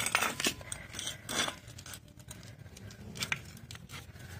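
A few separate light metallic clinks and taps of small motorcycle drum-brake parts and a spanner being handled on a concrete floor while the brake shoe assembly is taken apart.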